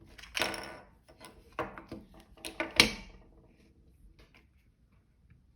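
Clicks, knocks and a short scrape of small parts being handled as a desoldering gun is taken apart. The loudest is a sharp click near three seconds in, and it is quieter towards the end.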